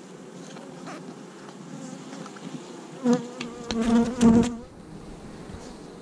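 Honeybees buzzing around an open hive frame. Individual bees fly close past the microphone about three seconds in and again around four seconds, their buzz swelling loud and then falling away.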